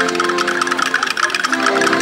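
Several accordions playing a folk tune in held chords, with a quick rhythmic ticking over it.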